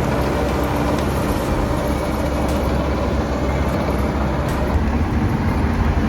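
Heavy diesel engine running steadily with a continuous low rumble.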